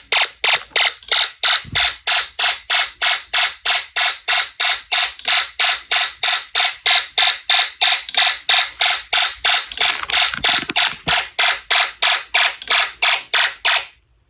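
A Snap Circuits fire alarm sounding in rapid, even pulses, about four a second, then cutting off suddenly near the end.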